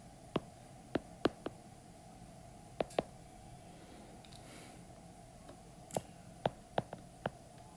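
Stylus tapping and clicking on a tablet screen while handwriting figures: about a dozen sharp clicks, singly and in small clusters, over a faint steady hum.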